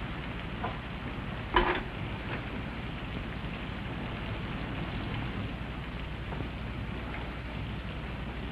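Steady rain on a roof, an even hiss throughout. About a second and a half in comes one sharp, short knock, the loudest moment, with a few fainter ticks around it.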